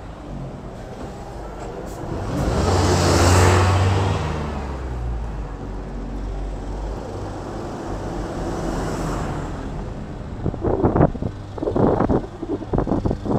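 A car passes close by on the road, its engine and tyre noise swelling to a peak about three seconds in and then fading; a fainter vehicle follows. Near the end comes a run of irregular thumps.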